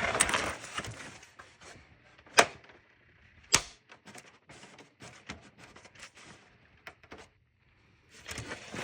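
Plastic casing of an Xbox 360 console being handled and pulled at: a scraping rustle at first, two sharp plastic clicks a little over a second apart, then scattered faint taps.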